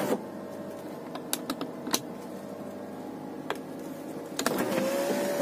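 A few sharp clicks, then about four and a half seconds in the electric sunroof motor of a 2009 Kia Cerato starts with a short rising whine that settles into a steady hum.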